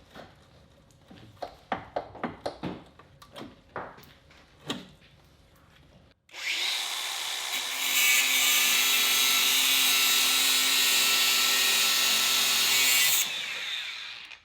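Scattered clinks and knocks of parts being handled, then a power tool starts about six seconds in and runs steadily and loudly for about seven seconds before winding down and stopping near the end.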